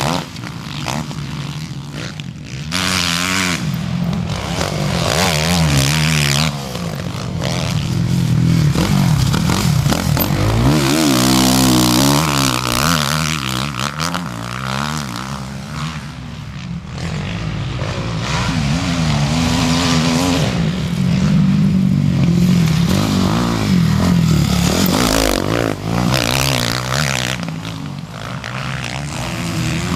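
Motocross dirt bike engines revving hard and shifting, their pitch climbing and dropping again and again as the bikes ride by, with several loud rushes of noise.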